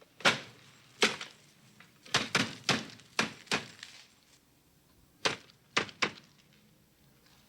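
A series of about eleven sharp thunks in uneven clusters, including a quick run of four about two seconds in and three more after five seconds.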